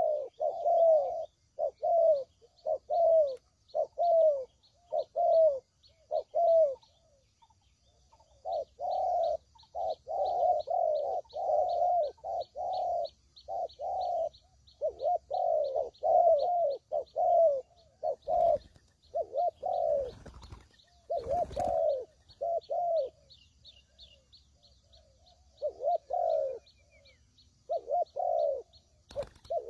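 Spotted dove (tekukur) cooing: runs of low, downward-curving coo notes in repeated phrases with short pauses between them. A faint, fast, high ticking runs behind the coos, and a few short knocks come about two-thirds of the way through.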